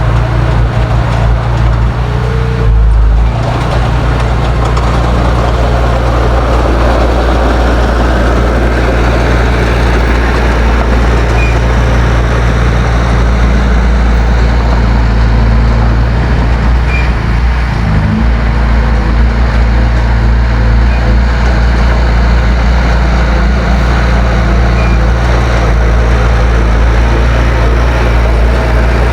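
Heavy diesel engine of earthmoving machinery running steadily, with a brief louder low thump about three seconds in and the engine note stepping up about eighteen seconds in.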